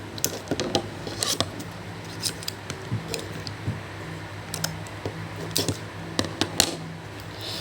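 A toy's packaging being worked open by hand with some difficulty: irregular sharp clicks, snaps and crinkles, a few louder snaps about a second in and again near the end.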